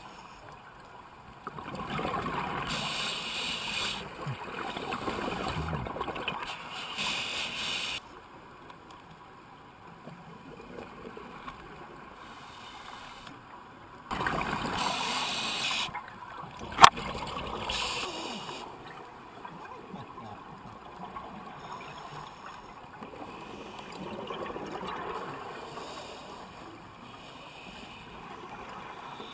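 Scuba regulator exhaust bubbles gurgling underwater in bursts of a few seconds as a diver breathes out, with quieter stretches between breaths. A single sharp click partway through.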